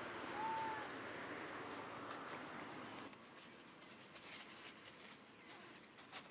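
Outdoor ambience with a single short squeaky animal call about half a second in. From about three seconds on it is quieter, with faint high bird chirps.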